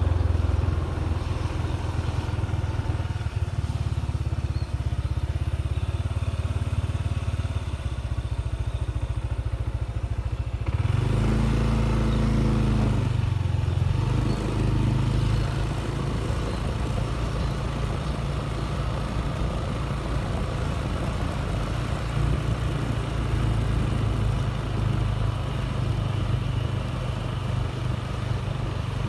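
Motorcycle riding along a road: a steady engine and road noise under heavy wind rumble on the microphone. About eleven seconds in, a pitched engine note rises for a couple of seconds.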